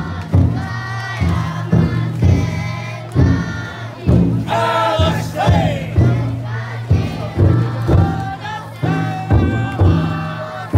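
Bearers of a futon daiko festival drum float chanting and shouting in unison, with the large drum inside the float struck at a steady slow beat, about once a second.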